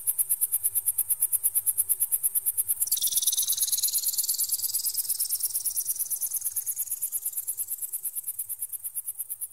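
Electronic bird-repeller sound: a very high-pitched tone pulsing rapidly and evenly. About three seconds in, a sweeping tone joins it, dropping sharply and then climbing slowly back up.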